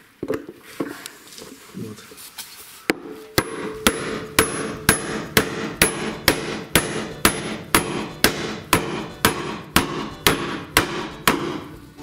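Hammer blows on a steel bearing drift, about two a second with a short metallic ring, driving a new bearing into the hub seat of a plastic washing-machine tub. The steady blows start about three seconds in, after a few lighter knocks. The even ring of the blows is taken as the sign that the bearing is going in without damage.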